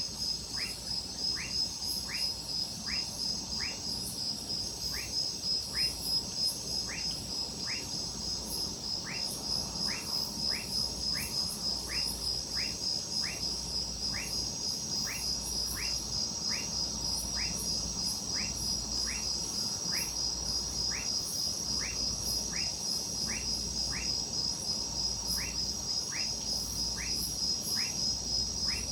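Chorus of crickets trilling in a steady, high-pitched, fast pulse, with a frog giving a short call about one and a half times a second.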